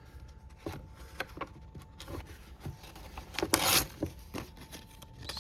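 Civivi Over Yonder pocket knife with its thin 14C28N blade being tried for sharpness: a few small clicks and rubs of handling, then a brief scraping slice about three and a half seconds in.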